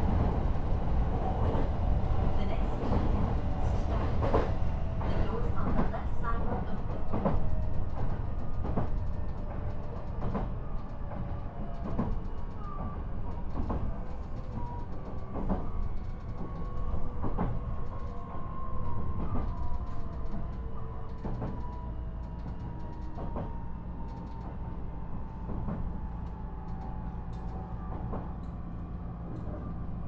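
Onboard running sound of a JR East E129-series electric multiple unit: a steady low rumble from wheels on rails, with rail-joint clicks about once a second. A faint motor whine slowly falls in pitch as the train slows.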